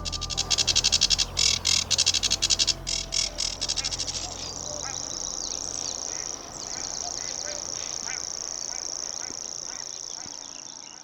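Wetland birdsong. A fast, loud, rattling high chatter for the first four seconds gives way to a steady high-pitched reeling trill with scattered short chirps, fading out at the very end.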